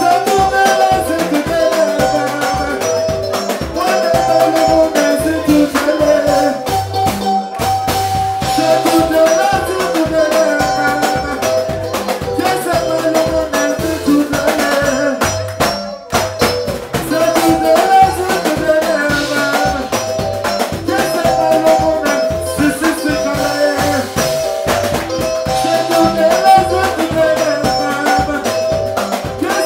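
Soukous band music: interlocking melodic lines over a steady bass pattern and busy percussion, dipping briefly about sixteen seconds in.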